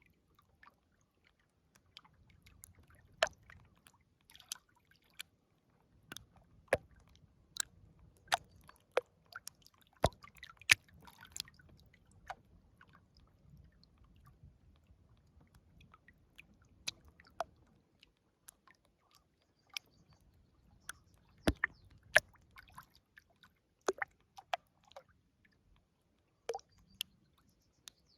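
River water close to the microphone: irregular drips, plops and small splashes at no steady rhythm, over a faint low rumble that comes and goes.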